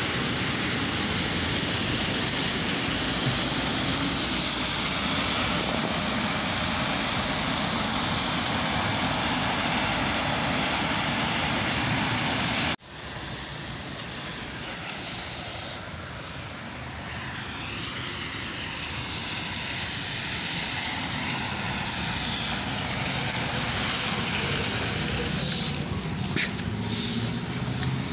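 Street traffic on a wet road: trolleybuses and cars passing, their tyres hissing on the wet asphalt. The sound cuts about 13 seconds in to a slightly quieter stretch of the same traffic noise.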